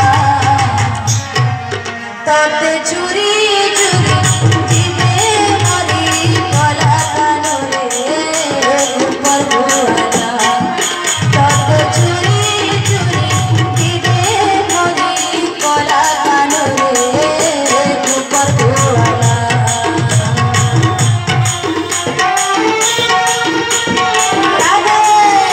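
Odia devotional song: a singing voice over electronic keyboard and hand-drum accompaniment with a steady beat, played through a PA loudspeaker.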